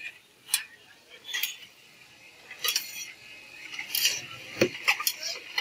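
Metal spatula and spoon clinking and scraping against a wide steel frying pan as pasta is stir-fried: irregular clatters, coming closer together near the end, over a steady hiss.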